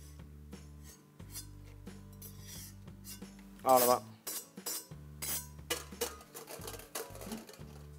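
Stainless steel utensils clinking and scraping as a skimmer ladle works roasted chillies, dal and seeds from a steel kadai into a steel strainer over a bowl, with background music. There is one brief, louder pitched sound about halfway through.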